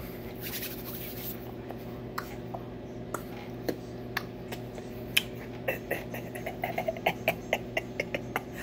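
A low, steady hum with a scatter of light clicks and taps that come faster in the second half, about three or four a second near the end.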